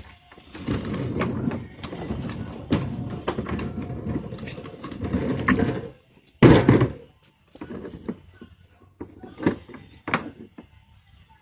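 Handling and knocking noise as welding gear is set up: a stretch of rustling and rattling with many small clicks, then one loud thump about six and a half seconds in, followed by scattered knocks.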